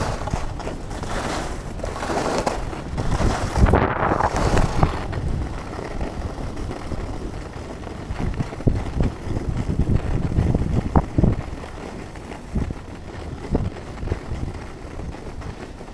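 Skis sliding and carving on packed piste snow: a rough scraping hiss that swells with the turns in the first few seconds, then brief scrapes. Low wind rumble on the action camera's microphone runs under it.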